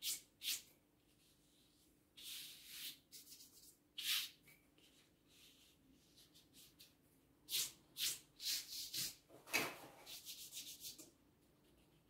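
Paperhanging brush swept over pasted wallpaper on a wall: short brushing strokes of bristles on paper, a few at first and then a quick run of them over the last few seconds.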